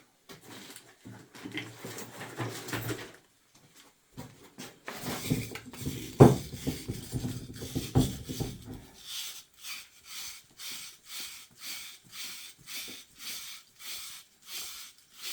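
Metal hydraulic parts being handled and knocked together, with two sharp clanks midway, then steady rhythmic scraping strokes, about two a second.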